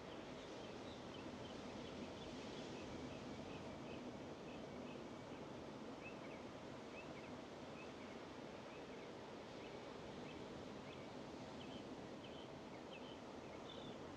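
Ocean surf as a faint, steady wash, with many short, high bird chirps scattered over it.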